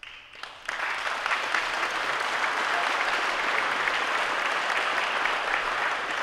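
Audience applauding, the clapping swelling sharply under a second in and then holding steady.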